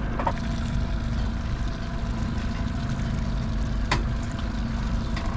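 Boat outboard motor running steadily, a constant hum with a low rumble beneath it. One sharp click about four seconds in.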